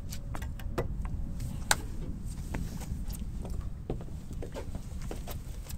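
Scattered knocks and clicks of footsteps and fishing gear being handled on a small boat's deck, one sharper knock about two seconds in, over a steady low rumble.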